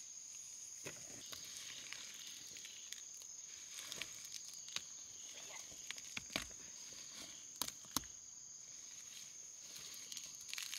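Insects chirring in a steady high-pitched drone, with scattered light rustling and clicks and a few sharp clicks about six and eight seconds in.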